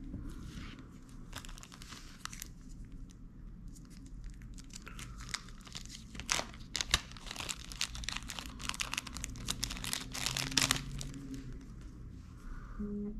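Thin clear plastic packet crinkling and crackling as it is handled, the crackles coming thick and fast through the second half.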